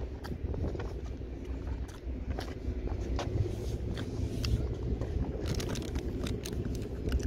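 Plastic bag crinkling in gloved hands: a scattered run of sharp crackles and rustles over a steady low rumble.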